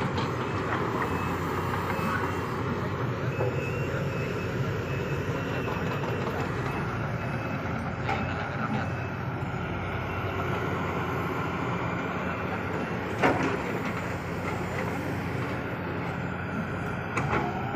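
Diesel engines of Sumitomo hydraulic excavators running steadily under digging work. A single sharp clank comes about two-thirds of the way through.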